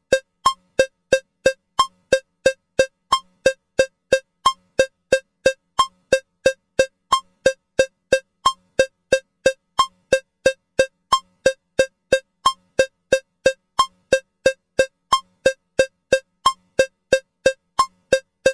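Metronome cowbell sound clicking at a steady 180 beats per minute, three short ringing strikes a second, with every fourth strike faintly marked to count out bars of 4/4.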